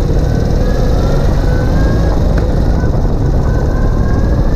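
Ural Gear Up sidecar motorcycle under way, heard from underneath: a steady, loud mix of the flat-twin engine's low rumble with road and wind noise. A faint whine glides up and down in pitch over it.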